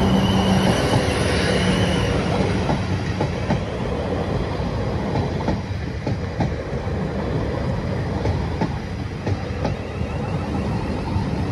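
Siemens Desiro electric multiple unit passing close by, a steady rush of noise with clicking from the wheels running over the rail joints. For about the first two seconds a level-crossing warning tone sounds under it.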